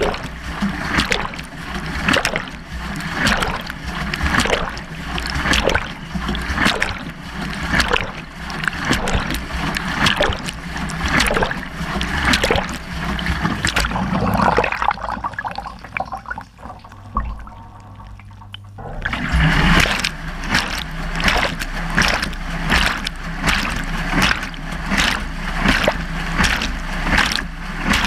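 Water sloshing and splashing in a BEKO washing machine drum as it turns, heard from inside the drum, with a surge about once a second. It goes quieter for a few seconds around the middle while the drum pauses, then the rhythmic sloshing starts again a little faster.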